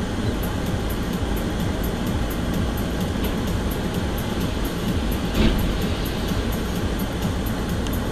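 Steady low rumble of a moving vehicle, as heard by a dashcam, with a brief louder sound about five and a half seconds in.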